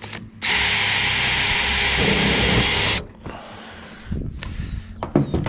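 DeWalt cordless drill-driver driving a roofing screw through the ridge cap of a metal tile roof. It runs in one steady burst of about two and a half seconds, changes tone about two seconds in, then cuts off suddenly.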